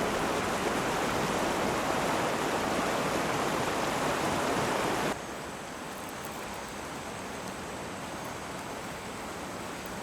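A river flowing, a steady rush of water; about five seconds in it drops suddenly to a quieter, more distant rush.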